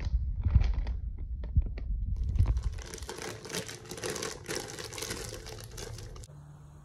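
Clear plastic zip-top bag of food crinkling as it is handled: scattered crinkles and taps at first, then about three seconds of denser crinkling as the bag is shaken and squeezed.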